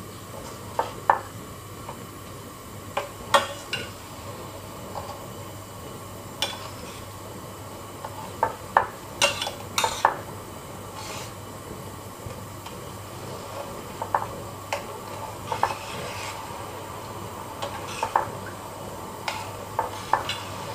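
Metal spoon stirring sugar and water in a stainless steel pot, with irregular scrapes and clinks against the bottom and sides, over a steady low hiss. The sugar is being stirred so it dissolves without burning, before the syrup boils.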